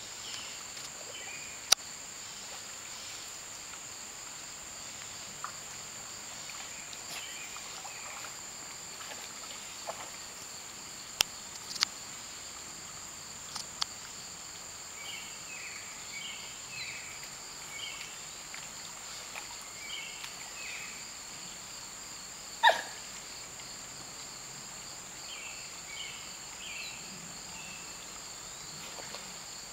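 Steady, high-pitched chorus of insects such as crickets or katydids in summer woodland, with scattered short chirps over it. A few sharp clicks break in, the loudest about three-quarters of the way through.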